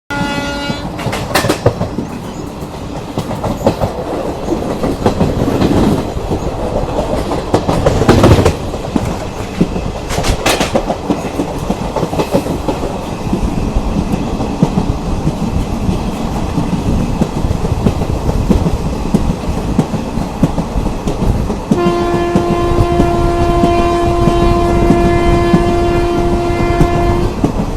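Indian Railways ICF passenger coaches running at speed, wheels rumbling and clattering over rail joints with a few louder clanks. About 22 seconds in, the train's horn starts one long steady blast, with a brief break near the end.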